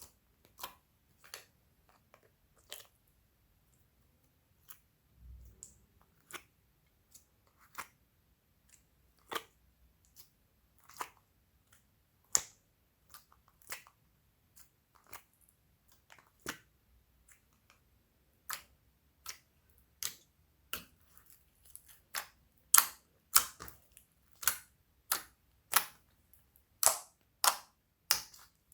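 Glossy slime being kneaded and pressed by hand, giving sharp, sticky clicks and pops. They come irregularly and faintly at first, then grow louder and come about twice a second near the end.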